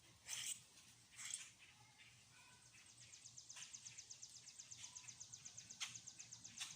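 Songbirds calling: two short high chirps, a few brief thin whistled notes, then a rapid high trill lasting about three seconds, all faint.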